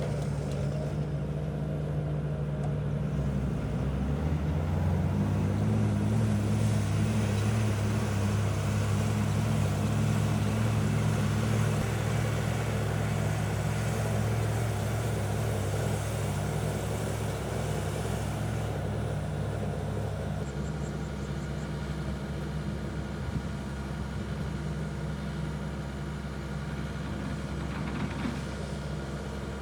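Heavy construction-machine diesel engine running steadily, its pitch rising about four seconds in and falling back about twenty seconds in.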